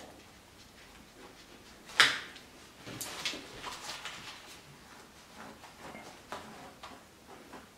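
Metal press-stud halves snapping shut as latex panels are pressed together: one sharp snap about two seconds in, then several lighter clicks, with the latex sheeting rustling against the floor.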